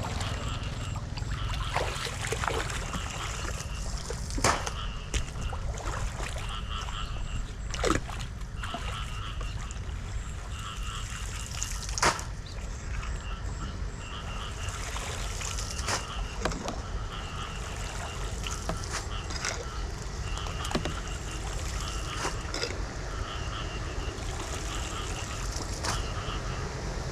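Floodwater trickling and splashing around a street drain, with a steady low rumble and a few sharp knocks.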